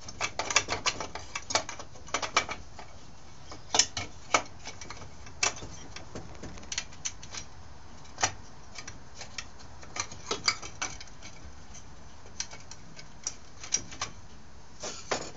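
Irregular light clicks and taps of small tools and parts being handled on a Stihl S10 chainsaw during carburetor work, thickest in the first couple of seconds and again about ten seconds in.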